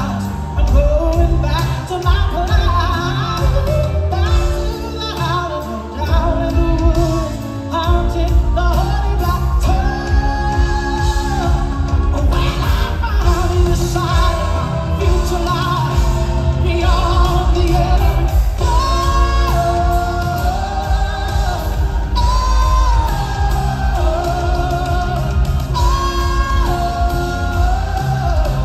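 Live band playing with a woman singing lead: electric guitars, keyboards and a drum kit under a sung melody, with heavy bass throughout.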